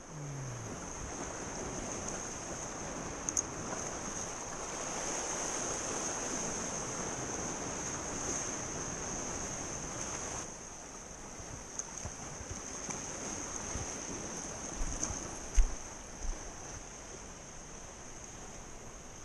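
Sea surf washing against shoreline rocks, with wind on the microphone; the wash is heavier at first and drops off about halfway through. A steady high-pitched whine runs underneath, and a few light knocks come in the second half.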